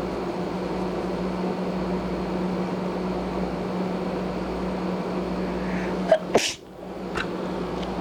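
A person sneezing once, sharply, about six seconds in, over a steady background hum.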